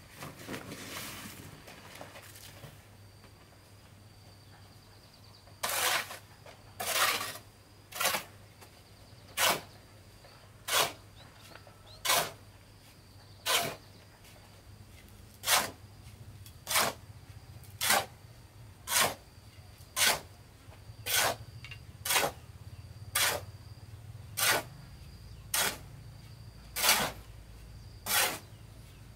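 Steel shovel scraping into a pile of sand and cement on a concrete slab, turning mortar by hand: a steady run of short scrapes, about one a second. It starts about six seconds in, after a soft rushing in the first couple of seconds.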